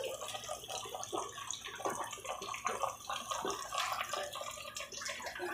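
Catfish fillets deep-frying in a pot of hot oil, sizzling with many small crackling pops.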